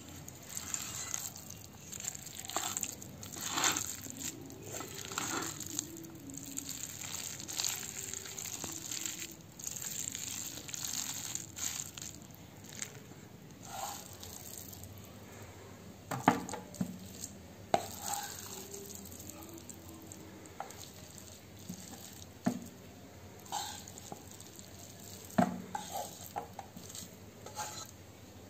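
Wooden spatula stirring and scraping instant noodles in a kadai, a run of uneven scraping strokes. In the second half come several sharp knocks and taps of the spatula against the pan as the noodles are scooped out onto a tray.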